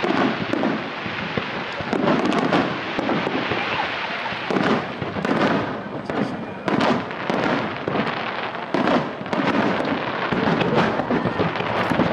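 Aerial fireworks display: shells launching and bursting in quick succession, a dense run of loud bangs with no pause.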